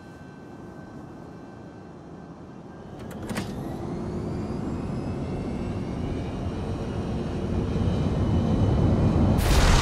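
Aircraft jet engines spooling up with a rising whine, growing steadily louder over several seconds, after a soft click about three seconds in; a sudden loud rush breaks in just before the end.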